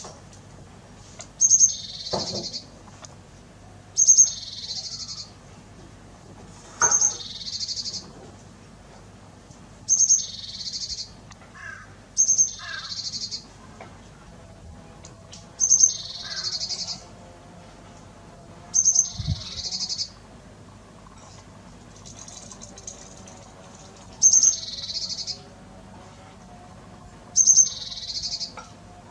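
A bird calling over and over, about every three seconds: each call a sharp high note followed by a harsh, buzzy phrase of about a second.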